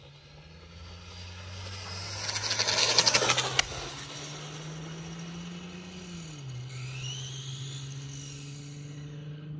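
Electric RC car on a full-throttle speed run: its motor whine builds as it approaches and is loudest about three seconds in, with a rush of tyre and wind noise as it passes close. A steady whine follows, dropping in pitch about six seconds in.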